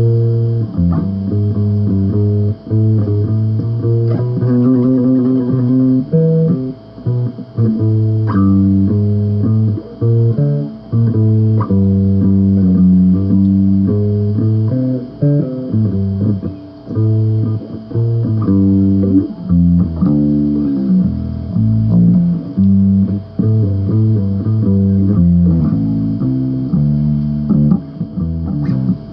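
Bass guitar played solo: a continuous riff of plucked low notes that shift pitch from phrase to phrase, with short breaks between phrases.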